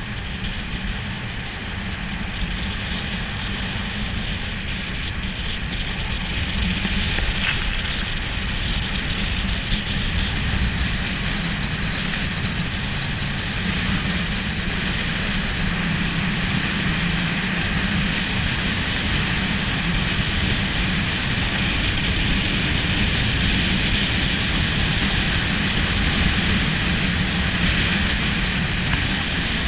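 Longboard rolling fast downhill: a steady roar of urethane wheels on the road mixed with rushing air, growing a little louder over the first several seconds.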